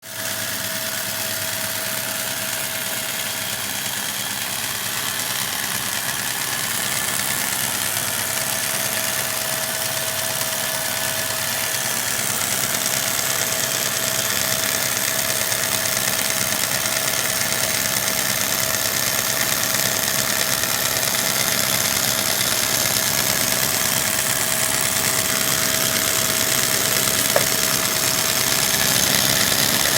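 Homemade belt grinder driven by a three-phase electric motor, running steadily with a constant whine over a rushing noise that grows slowly louder. A single sharp click comes a few seconds before the end.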